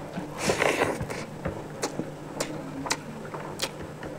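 Close-up eating sounds: a brief slurp about half a second in, then sharp clicks of chewing, roughly one every half second.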